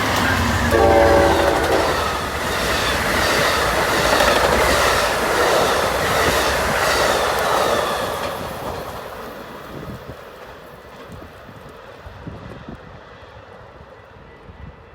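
Amtrak passenger train passing at speed: a short horn blast about a second in, then loud rail clatter and wheel noise with a regular clickety-clack that fades away as the train recedes.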